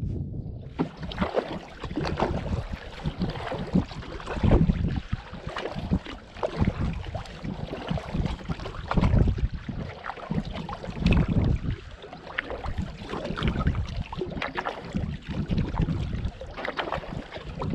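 Wind buffeting the microphone in uneven gusts, with water splashing and lapping around a kayak.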